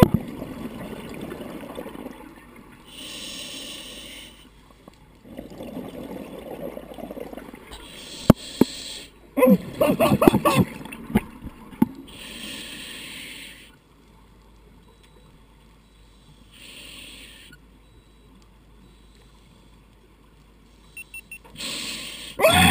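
Scuba diver breathing through a regulator underwater: short hissing inhalations through the demand valve alternate with bubbling, gurgling exhalations, roughly one breath every four to five seconds, with a longer gap between breaths in the second half.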